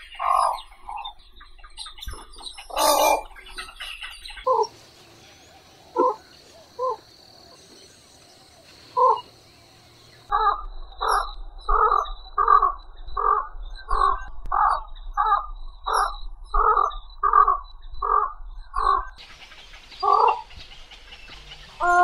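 Chinese pond herons calling: short calls, a few spaced singly at first, then a run of about fourteen at an even pace of more than one a second.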